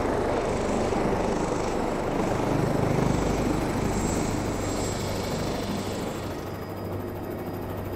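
Rescue helicopter running close by, a steady rotor beat under a thin high whine. About six seconds in, the high whine fades and the sound turns duller.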